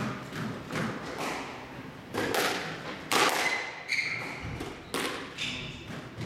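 Squash rally: a string of sharp knocks at uneven spacing as the ball is struck by rackets and rebounds off the court walls, with a couple of short high squeaks from players' shoes on the court floor near the middle.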